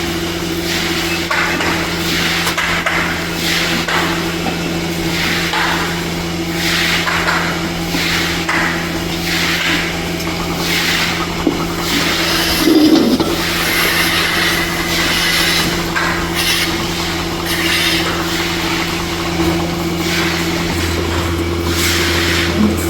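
Milking-parlour machinery running: a steady low hum with a hiss that recurs roughly once a second. The hum's low tone shifts about three-quarters of the way through.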